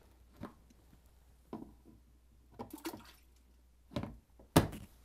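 Leather work gloves and a long-handled tool handled and set down on a plastic bin lid: a few scattered knocks and rustles, the loudest one near the end.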